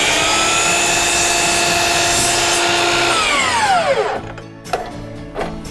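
Electric power saw running at full speed through a cut in a wooden board, its whine steady for about three seconds, then winding down in pitch and stopping about four seconds in.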